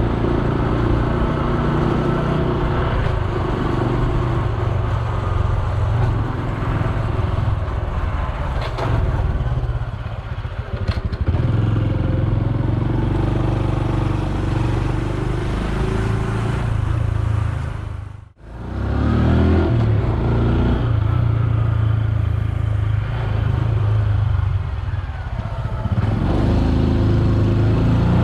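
Honda Super Cub C125's single-cylinder four-stroke engine running steadily while riding, with some changes in pitch and road and wind noise. The sound cuts out sharply for a moment about eighteen seconds in.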